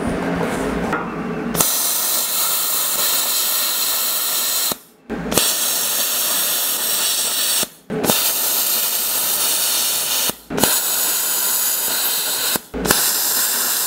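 Handheld plasma cutter cutting through a rusty steel bar grate: a loud, steady hiss that starts about a second and a half in and breaks off four times for a moment as the trigger is released between cuts, starting again each time.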